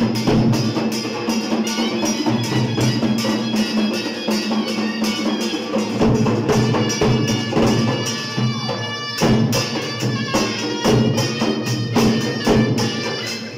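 Live Lewa dance music. Two dhol barrel drums beat a fast, even rhythm under a reedy double-reed pipe (shehnai/surna) holding a continuous, droning melody.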